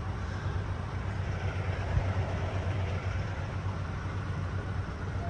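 Steady low rumble of a motor vehicle, with a single short knock about two seconds in.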